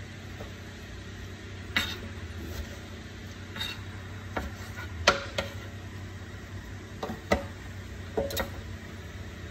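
Chef's knife cutting raw chicken on a plastic cutting board: irregular knocks of the blade hitting the board, several coming in close pairs, over a steady low hum.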